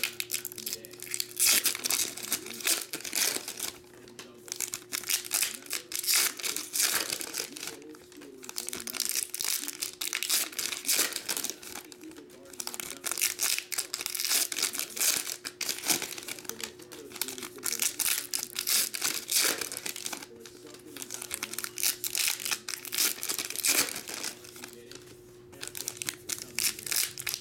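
Foil trading-card pack wrappers crinkling and tearing as Bowman University football packs are opened one after another, in irregular bursts with short lulls, over a faint steady hum.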